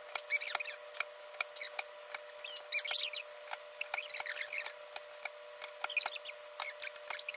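Plastic keycaps being pressed back onto a computer keyboard: a run of small irregular clicks and snaps. A few short, high chirps from an African grey parrot come in between, the loudest about three seconds in.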